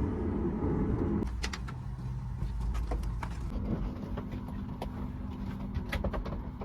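Steady low rumble of a vehicle interior with scattered light clicks and rattles. The heavier low noise drops away about a second in, and a steady low hum takes over a few seconds later.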